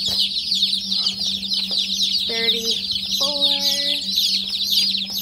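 A crowd of day-old Cornish cross chicks peeping constantly, many high-pitched peeps overlapping with no break, over a steady low hum.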